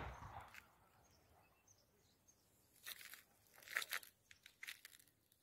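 Footsteps crunching over dry rubble and debris, a few steps in the second half. A single low thump right at the start.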